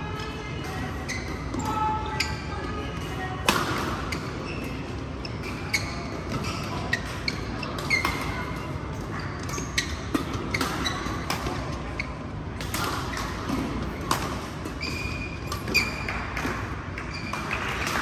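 Badminton rackets striking a shuttlecock in a rally, a sharp crack every second or so, with shoes squeaking briefly on the court mat in a large echoing hall.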